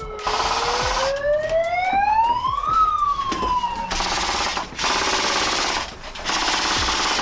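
Airsoft rifles firing long full-auto bursts, three of them, one after another. Under the first burst a siren wails, rising in pitch for about two and a half seconds, then falling away.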